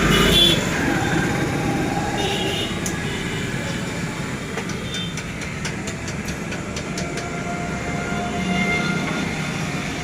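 Old Royal Enfield Bullet's single-cylinder four-stroke engine running steadily with its low, even thump, heard after a tappet setting, with a few light clicks in the middle.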